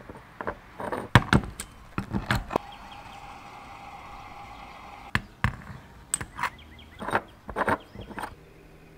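A series of irregular knocks and thumps, about a dozen sharp hits, loudest in the first two and a half seconds and again after about five seconds.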